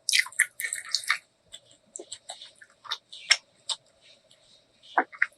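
Close-miked wet eating sounds: mouth smacks and chewing clicks, a dense run in the first second, then scattered, with a short lull before one more near the end.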